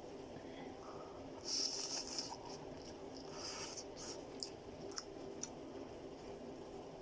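Someone eating chicken chow mein noodles: short hissy eating sounds about a second and a half in and again around three and a half seconds, then a few light clicks, over a steady low hum.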